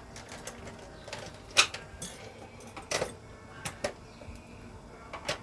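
A handful of short, sharp clicks and knocks at irregular intervals, the loudest about a second and a half in, typical of kitchen utensils and dishes being handled.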